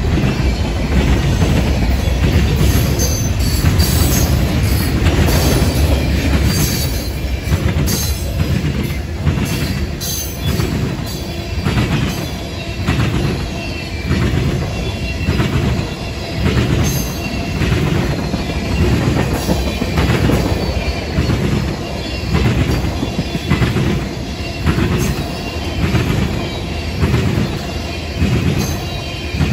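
A freight train rolling past close by, first boxcars and then tank cars. Its steel wheels click over the rail joints in a steady rhythm of about one beat a second over a deep rumble. Brief high-pitched wheel squeals come in the first half.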